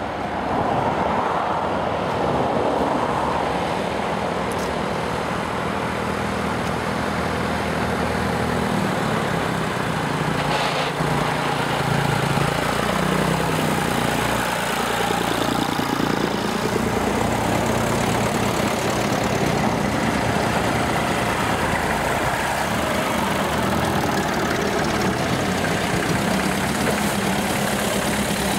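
Engines of several vintage tractors, grey Ferguson TE20-type tractors among them, running as they drive past one after another, their engine notes rising and falling as each goes by.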